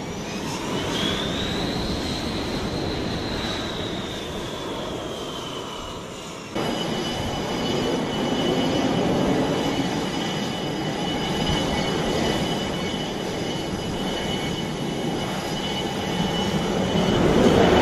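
F/A-18 Hornet jet engines running on a carrier flight deck: a high turbine whine rises and then sinks slowly, and after a cut a steady high whine sits over broad engine noise. Near the end the noise swells louder as the jet runs up for launch.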